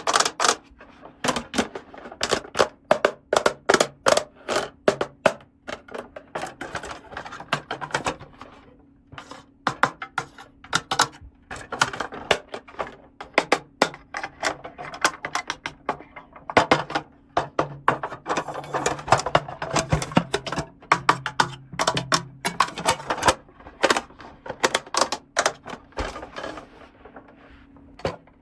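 Small plastic toy pieces and packaging being handled and unboxed: quick, irregular clicks, taps and crinkles, with a faint steady hum underneath.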